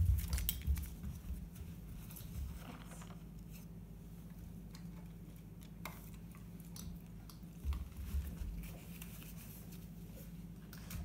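Light, scattered clicks and taps of a dog's claws on a hardwood floor and a nylon harness being handled and fastened, with a few dull thumps near the start and again about eight seconds in.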